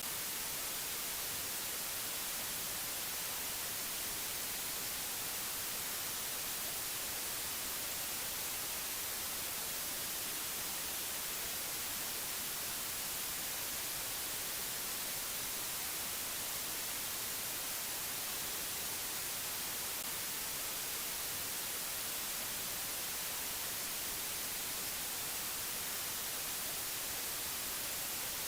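Steady, unchanging white-noise hiss, brightest in the high frequencies, with no other sound over it.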